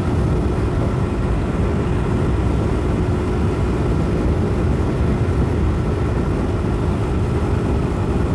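Motorcycle engine running at a steady pace while riding, heard through a helmet-mounted microphone, with a dense low rumble and a faint steady hum.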